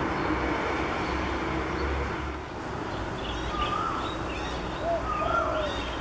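A low steady rumble, with short whistled bird calls from about three seconds in: several brief notes at different pitches, some sliding up or down.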